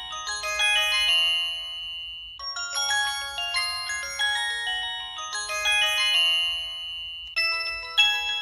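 Samsung Anycall SCH-S530 mobile phone playing a ringtone through its speaker: a synthesized melody in bell-like tones, in short phrases. A different tune starts about seven seconds in.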